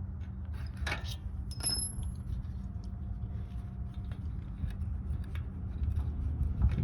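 Light metallic clicks and clinks of a hand tool working against a brake caliper while a pad-retaining pin is freed, one giving a short ringing ping about two seconds in, over a steady low hum.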